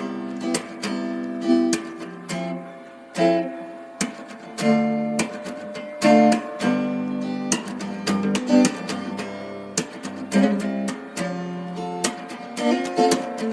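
Acoustic guitar music: chords strummed in sharp, repeated strokes, each chord ringing on between them.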